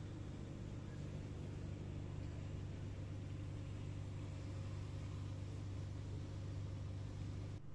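Steady low hum of a stationary ŁKA electric multiple unit's auxiliary equipment at the platform, with an even hiss over it.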